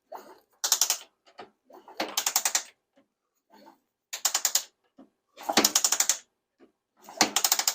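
1977 Suzuki GS550 engine being turned over by its kick-starter five times, about every second and a half, each kick a quick burst of ratchety clicking. The engine turns freely with WD-40 in the cylinders and no spark plugs, loosening it up before any attempt to run it.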